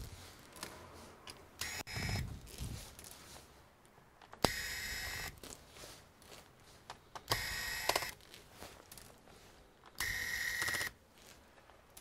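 Cordless electric screwdriver whining in four short runs of under a second each, a few seconds apart, backing out the screws of a laptop's bottom cover, with light clicks of handling in between.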